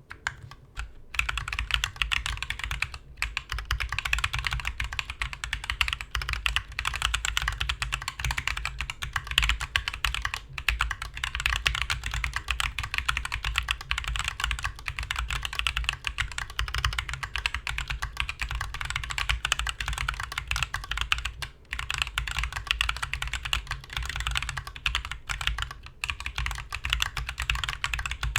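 Mechanical keyboard fitted with C3 Equalz x TKC Kiwi tactile switches being typed on steadily, a fast, continuous run of keystroke clicks broken by a few brief pauses.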